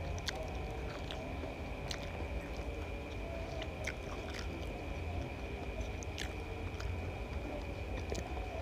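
Close-up mouth sounds of a person chewing a mouthful of fried rice vermicelli, with scattered wet clicks and smacks. A steady low hum and a steady high whine run underneath.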